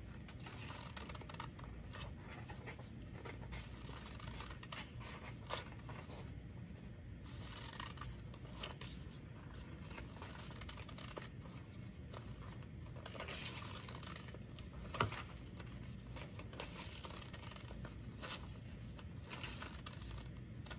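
Scissors cutting through paper: faint, irregular snips with the sheets rustling, and one sharper click about fifteen seconds in.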